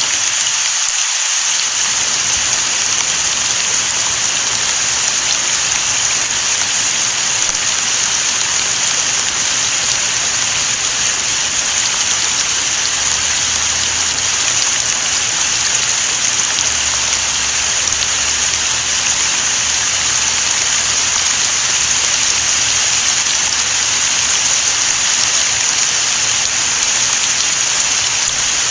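Steady rain falling, an even hiss that keeps the same level throughout.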